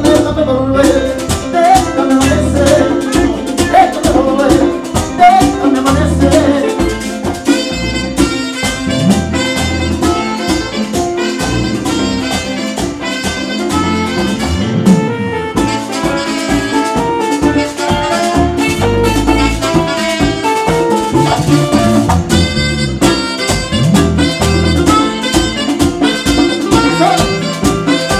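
Live Latin band playing an instrumental passage: a steady bass and percussion beat under guitar, with saxophone lines coming to the fore from about eight seconds in.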